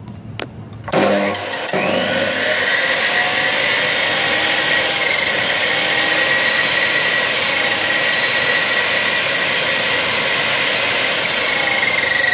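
Modern-brand cut-off saw's brushed universal motor, used as a bone saw, switched on with a click and coming up to speed about a second in, then running steadily with a high whine, spinning free without cutting.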